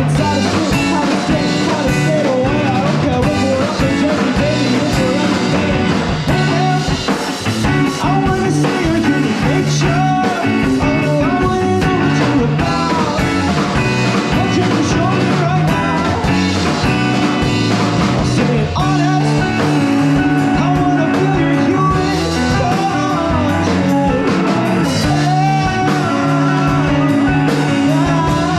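Rock band playing live, electric guitar over bass and drums.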